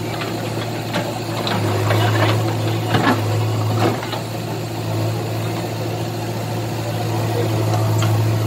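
JCB backhoe loader's diesel engine running steadily while its bucket digs through brick rubble, with several sharp knocks and clatters of debris in the first half.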